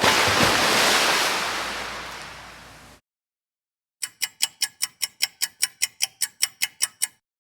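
Two stock sound effects one after the other. First, a sudden noisy crash-like burst that fades away over about three seconds. After a second of silence comes a run of about sixteen evenly spaced sharp ticks, about five a second.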